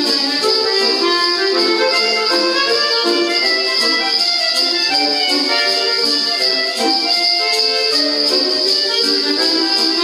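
An accordion plays a lively folk-style tune with a small ensemble, its held notes stepping through the melody over a steady light percussion beat.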